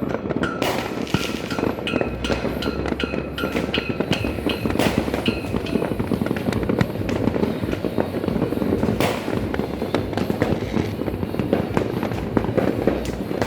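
Fireworks and firecrackers going off in a dense, continuous crackle of bangs, with a run of short high tones in the first few seconds.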